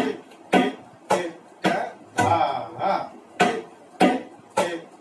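Tabla, a wooden dayan and a metal bayan, struck in a steady, even pulse of about two strokes a second while keeping the sixteen-beat teentaal cycle; a few strokes carry a deep bass boom from the bayan.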